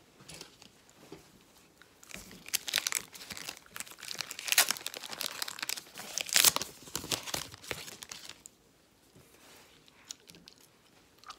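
Trading-card pack wrapper being torn open and crinkled, a run of crackling for several seconds that is loudest around the middle, then quieter handling of the cards.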